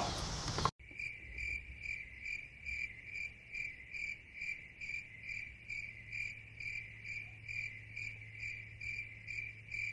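A cricket chirping steadily, about two and a half chirps a second, starting abruptly about a second in: the stock cricket sound effect for an awkward silence.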